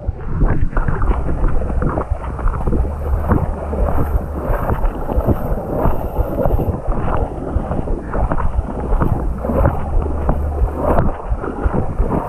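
Feet splashing and stamping through shallow muddy water: a dense run of quick splashes, with a low wind rumble on the microphone.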